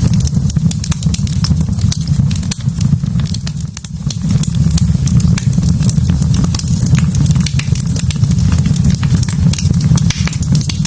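Wood fire burning in a fireplace: many sharp crackles and pops at irregular intervals over a steady low rumble, easing briefly about four seconds in.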